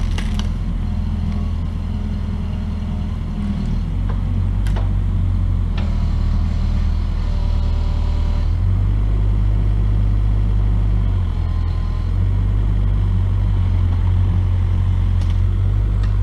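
Truck engine running steadily at idle, a low rumble, with a few sharp knocks scattered through it.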